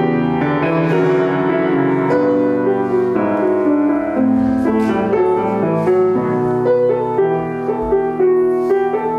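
Solo grand piano playing a classical piece, chords and melody notes ringing into one another without a pause.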